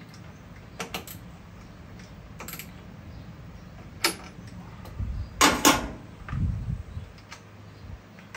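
Scattered clicks and knocks of tools and parts being handled while working on a small ATV, with a sharp double clack about five and a half seconds in, the loudest, followed by a few low thumps. A faint steady hum runs underneath.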